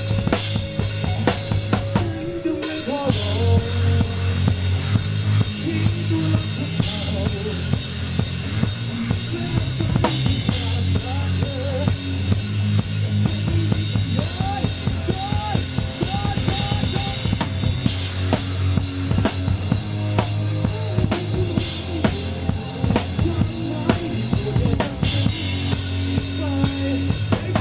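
Live band playing, heard from just behind the drummer: the acoustic drum kit is loud and close, with rapid kick and snare hits over the guitars.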